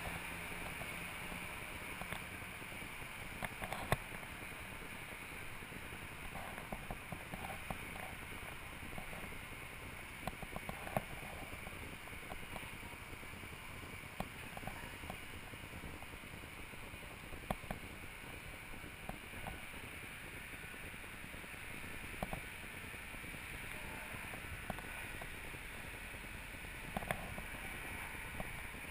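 Steady rushing noise on a moving action camera's microphone, with scattered light clicks and knocks.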